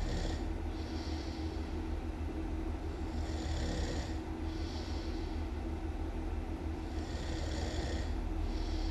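A person snoring loudly in slow, even cycles about every four seconds, each a pair of breathy rasps, over a steady low hum.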